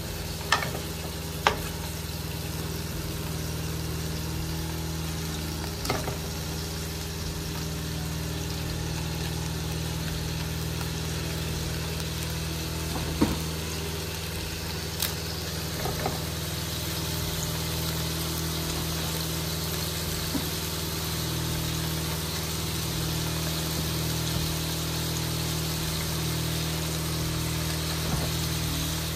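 Beef slider patties sizzling in hot oil in a nonstick skillet. A few sharp clicks of a metal spatula against the pan stand out at intervals as the patties are turned.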